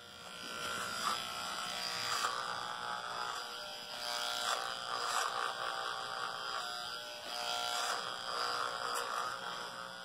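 Corded electric hair clipper with a guard comb buzzing steadily as it cuts a man's hair. It gets louder over the first second, then rises and falls a little as it is worked over the head.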